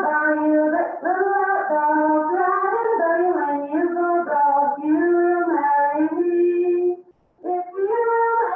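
A woman singing a traditional Appalachian song unaccompanied from a field recording. She holds notes and steps between them, with a short break for breath about seven seconds in.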